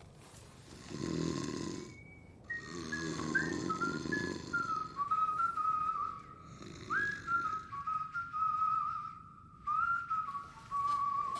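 A person snoring in rasping bursts, three times, while a whistled tune plays in stepping notes from a few seconds in.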